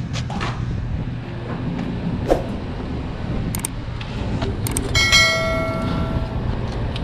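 Steady low hum of the running refrigeration condensing unit, with a couple of light knocks; about five seconds in, a piece of metal is struck and rings out like a bell, dying away over about a second and a half.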